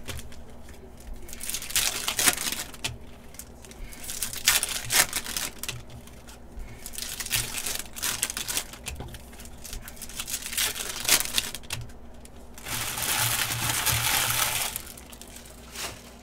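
Foil wrappers of Panini basketball card packs crinkling and tearing as they are ripped open, in repeated bursts, with a longer stretch of crinkling a little before the end.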